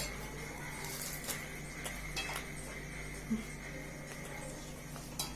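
A few faint, scattered clinks of tableware, light taps of dishes and cutlery, over a steady low hum.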